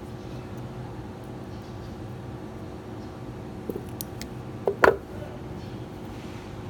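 A few light metal clicks from steel needle-nose pliers being handled, then one louder clack a little under five seconds in as they are set down on the table, over a steady low hum.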